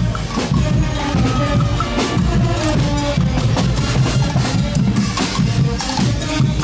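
A live brass-and-drum carnival band playing, with horns held over a steady bass drum and snare beat.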